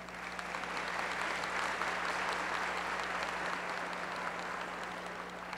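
Audience applauding: even, steady clapping that builds over the first second and slowly dies away near the end.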